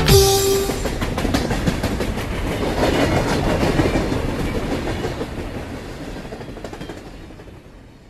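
A rattling, clattering noise full of rapid clicks, fading slowly away to silence, after a brief held tone at the start.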